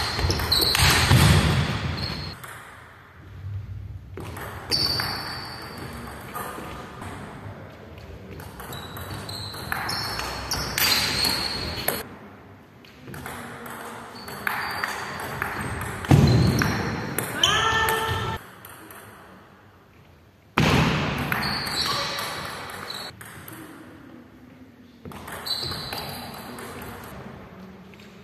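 Table tennis play: the ball clicking off the bats and bouncing on the table in quick rallies, echoing in a large hall, with quieter pauses between points.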